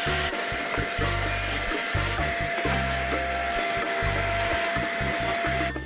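Vacuum cleaner running with a steady motor whine, switched off near the end. Background music with a beat plays underneath.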